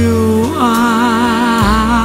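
Male vocalist singing a slow Vietnamese ballad, holding long notes with a wide vibrato, over piano and band accompaniment.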